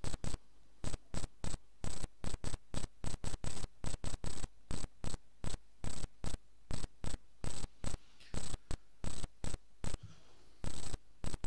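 Crackling on the microphone line: rapid, irregular bursts of static-like noise, several a second, each starting and stopping abruptly.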